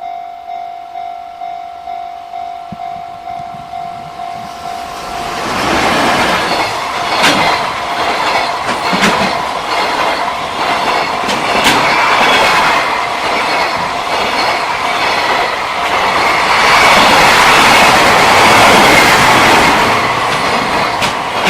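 Level crossing warning bell ringing in a steady repeating pattern, about one and a half rings a second. About five seconds in, a freight train reaches the crossing and passes loudly, its wheels clacking over the rail joints, drowning out the bell.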